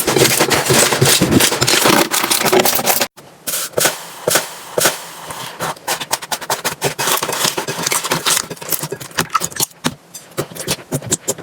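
Slime being squished and poked, giving a dense crackle of wet pops and clicks. About three seconds in it cuts off sharply, and a sparser run of pops follows.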